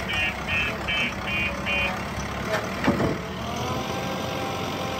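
JCB 3DX backhoe loader's diesel engine running, with its electronic alarm beeping about two and a half times a second. The beeping stops about two seconds in. A couple of sharp knocks come about a second later, then the engine runs on steadily.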